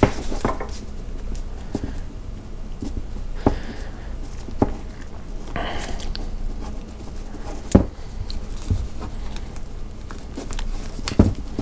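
Handling noise as stranded cord wires are twisted together and wrapped with a roll of wide vinyl electrical tape: a few scattered light taps and knocks with soft rustling between them.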